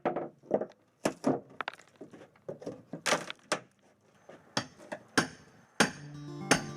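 Irregular hammer blows on wooden deck boards and nails, a dozen or so sharp knocks, some with a short metallic ring. Music comes in near the end.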